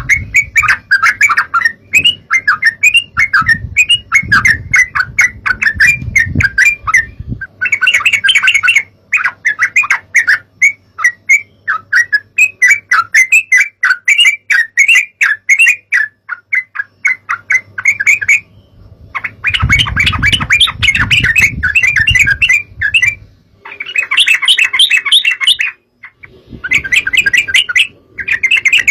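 Yellow-vented bulbul song: loud, rapid, bubbling chatter of short notes, delivered in long runs with brief pauses between them. A low rumble sits underneath at times.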